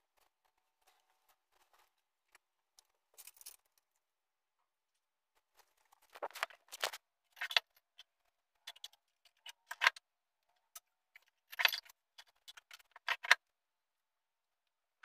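Scattered clicks, light knocks and rustles of household things being handled and put away while a room is tidied. A few faint ones come first, then a busier run of sharper clatters and rattles through the second half.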